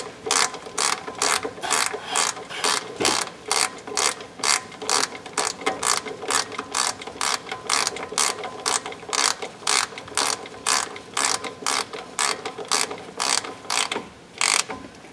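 Hand ratchet wrench clicking steadily, about three clicks a second, as a bolt is turned; the clicking stops about a second before the end.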